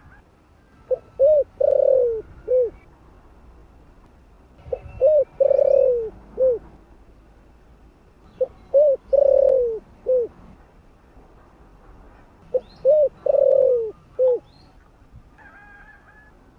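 Spotted dove (cu gáy) cooing its calling song: four repeated phrases about four seconds apart, each two quick coos, a longer falling coo and a short final coo.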